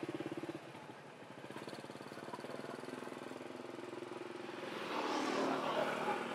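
An engine running with a fast, even putter. Its note drops away about half a second in, then another engine note rises slowly and grows louder, with a rushing noise loudest about five seconds in.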